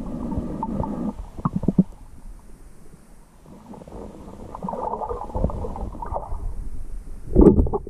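Muffled underwater rumbling and bubbling picked up by an underwater camera as a spearfisher swims. There are a few sharp clicks about a second and a half in, and a louder burst near the end.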